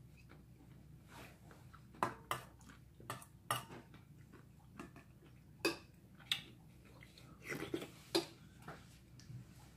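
Metal spoon clinking against a stainless-steel bowl during eating: several sharp clinks at irregular intervals, with quieter eating sounds between.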